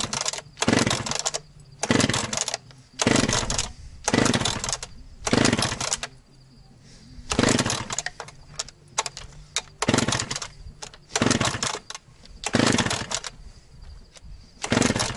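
Echo CS-670 two-stroke chainsaw being pull-started again and again: about a dozen quick yanks on the recoil starter rope, each a short rasping whir of the engine turning over, with a brief pause about six seconds in. It does not catch. This is the hard starting of a saw that has sat unused for a long time.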